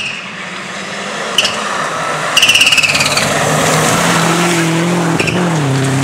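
Subaru Impreza rally car arriving flat out on a gravel stage, its engine running hard over a rising hiss of tyres scrabbling on loose gravel. The engine note drops in pitch about five and a half seconds in as the car goes by.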